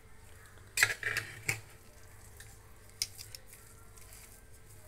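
Metal ladle stirring cooked rice in a pressure cooker, clinking and scraping against the pot: a quick run of three clinks about a second in and one more near three seconds.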